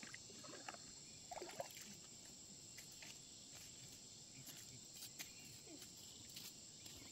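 Near silence outdoors: a faint, steady high-pitched insect drone, likely crickets, with a few soft clicks.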